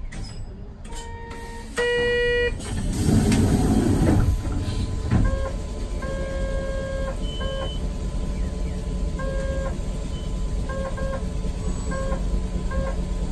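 Steady low rumble inside a tram stopped at an intersection, with a run of electronic beeps on one repeated tone, some short and some about a second long, and a brief rushing noise about three seconds in.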